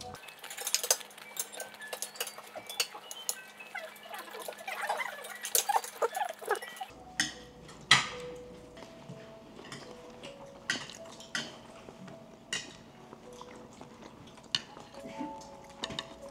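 Irregular sharp clinks of cutlery against plates and bowls at a meal, over soft background music.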